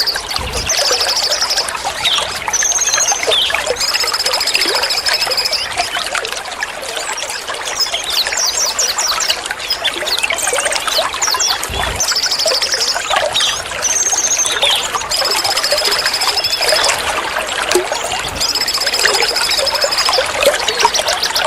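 Water trickling and splashing steadily, with birds chirping over it and a bird repeating a long, high whistled note every few seconds.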